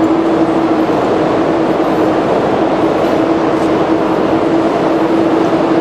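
Steady din of a busy railway station concourse: an unbroken noise with a constant low hum running through it.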